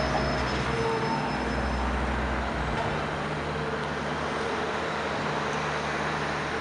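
Freightliner cab-over fire truck's Detroit Diesel 6V92 two-stroke V6 running, a steady low diesel rumble; the low pitch shifts about two and a half seconds in.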